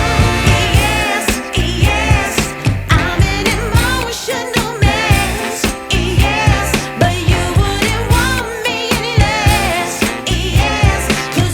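Background music: a song with a wavering, ornamented singing voice over a steady beat.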